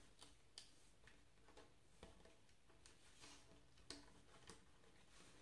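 Faint, scattered clicks and taps of copper-wound aluminium wire being bent and twisted around a screw on a wooden board, with two sharper clicks about half a second in and near four seconds.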